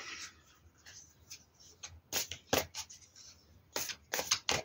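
Oracle cards being handled and laid on a table: a few short card snaps and flicks, mostly in the second half.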